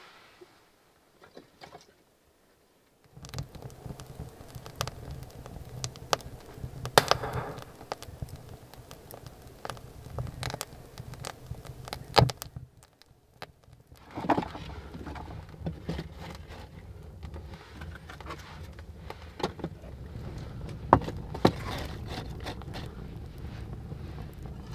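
Wood kindling fire burning in the firebox of a masonry wood stove: irregular sharp crackles and pops over a low steady rumble, starting a few seconds in and easing off briefly about halfway.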